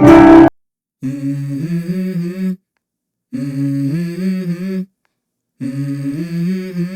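Humming voice in a song's intro: three short hummed phrases, wavering in pitch, with silent pauses between them. It opens with a brief loud tail of the preceding music.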